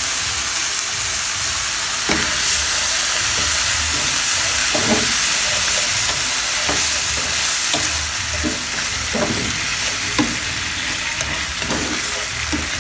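Water and ketchup sizzling with a steady hiss in a hot, oily frying pan of sweet peppers and onions. A utensil stirs through it, knocking against the pan now and then.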